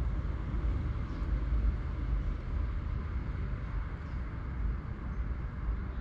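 Steady outdoor background rumble and hiss, with no distinct event standing out.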